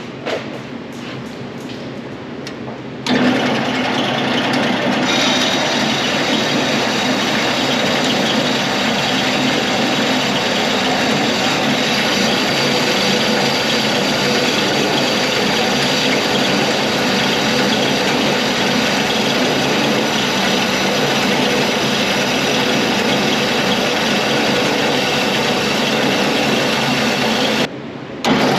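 A power tool starts about three seconds in and runs steadily and loudly, cutting out briefly near the end and starting again. Before it starts there are a few light clicks and knocks.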